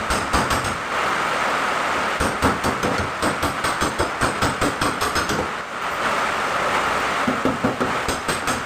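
Quick runs of hammer taps on sheet-metal bodywork, several strokes a second in short bursts, over a steady hiss.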